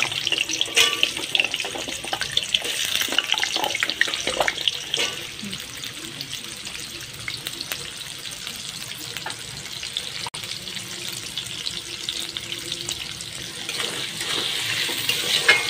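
Potato cubes sizzling and crackling in hot oil in a steel kadhai, with a steel spatula clicking and scraping against the pan in the first few seconds. The sizzle gets louder again near the end.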